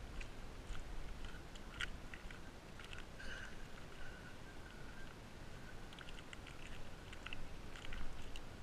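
Faint outdoor ambience: a low rumble of wind on the microphone with scattered small crackles and clicks.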